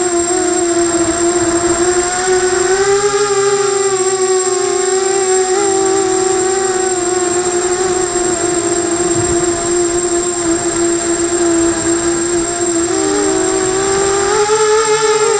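FPV250 quadcopter's electric motors and propellers whining steadily in flight, the pitch wobbling a little with throttle, with a dip and then a rise near the end. A constant high thin whine runs alongside.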